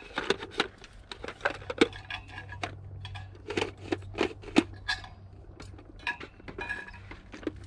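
Plastic lid and bowl of a hand-crank food chopper being fitted together and handled: a series of irregular sharp clicks, taps and clinks.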